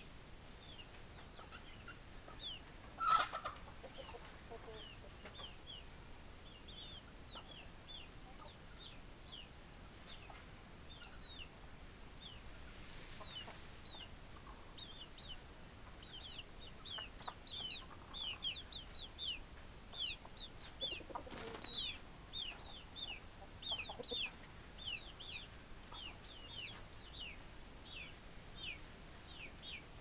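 Chickens calling: a steady run of short, high, falling peeps that grow thicker in the second half, with a louder, fuller cluck about 3 seconds in and another about 21 seconds in.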